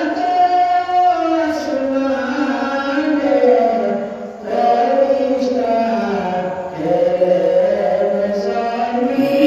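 A man chanting a Milad Sharif, a devotional recitation in praise of the Prophet, in long held, gliding melodic lines. There is a short break for breath about four seconds in.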